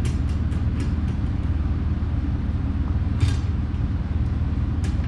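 Steady low machine hum, with a few faint metallic clicks from stainless cap nuts being threaded by hand onto the housing's tie rods.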